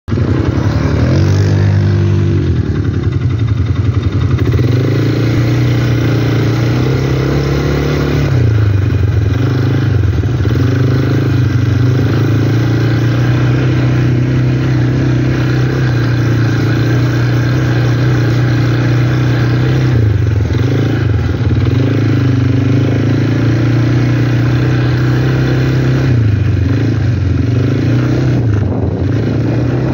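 Quad bike (ATV) engine running under the rider, its pitch falling and climbing again several times as the throttle is eased and opened.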